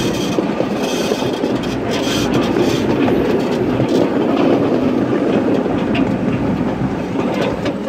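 Miniature railroad passenger cars rolling along the track: a steady rumble of small steel wheels on rail, with scattered clicks over the rail joints.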